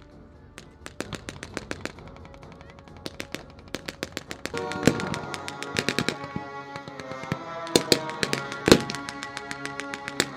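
Rapid, crackling blank gunfire of a battle reenactment, several shots a second, with a few louder bangs in the second half. Background music with sustained chords comes in about halfway and runs under the shots.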